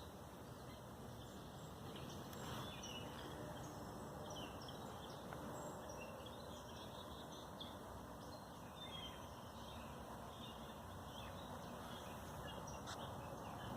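Outdoor ambience of small birds chirping and calling on and off, over a steady low background rumble.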